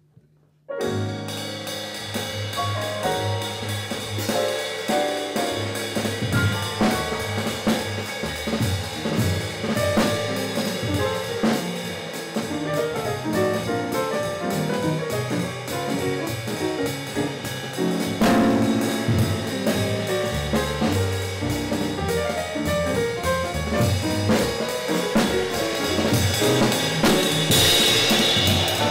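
Jazz piano trio playing: acoustic piano, upright bass and drum kit. The music starts abruptly under a second in, and the cymbals grow brighter near the end.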